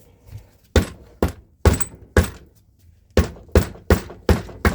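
Repeated hammer blows on a stuck joint of a Suzuki DS100 two-stroke engine, struck to knock the parts apart: four blows, a short pause, then five quicker ones.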